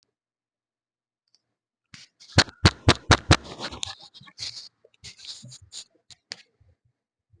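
Silence, then about two seconds in a quick run of sharp clicks and knocks with rustling, trailing off into scattered softer clicks: handling noise picked up by a microphone as it is being plugged in and fiddled with.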